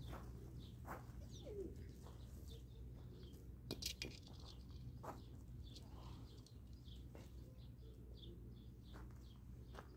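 Faint birds chirping and calling, with a few sharp clicks and scuffs on gravel from two puppies play-wrestling, the loudest cluster a little before the middle.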